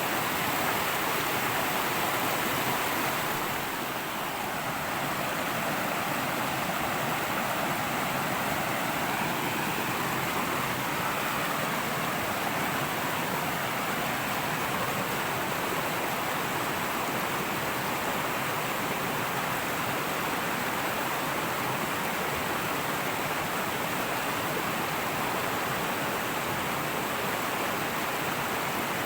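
Fast-flowing river rushing and splashing over rocks: a steady, full rush of water.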